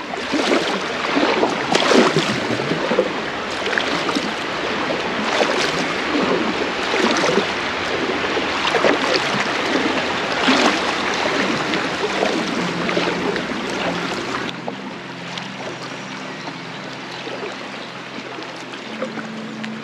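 Packraft paddle strokes splashing in flowing river water, about one stroke every one and a half to two seconds, over the steady rush of the current. About fourteen seconds in the water sound drops sharply.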